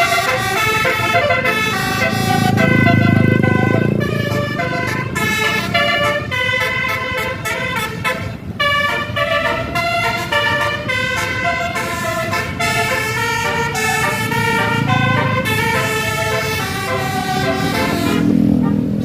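A bus's telolet horn, a multi-tone air horn, playing a stepping melody of held notes one after another, with a low rumble underneath that swells a few times.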